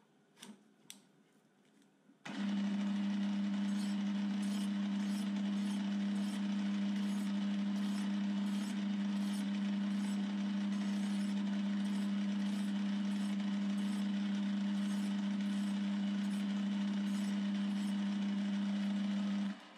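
Bench metal lathe switched on about two seconds in, running with a steady hum, while a hand file is held against the spinning workpiece to clean up its edge, with regular file strokes heard over the hum. The lathe stops abruptly just before the end.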